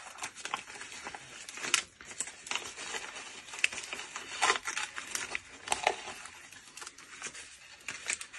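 White tissue paper crinkling and rustling as a small wrapped gift is unwrapped by hand, in many short, irregular crackles.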